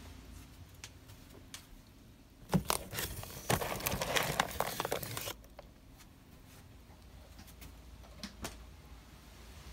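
Crinkling, crackling handling noise close to the microphone, lasting about three seconds from about two and a half seconds in. A few scattered clicks come before and after it.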